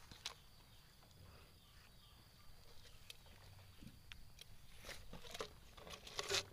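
Faint scattered clicks and taps of a clear plastic-bottle shrimp trap being handled and turned, over a faint steady high-pitched tone.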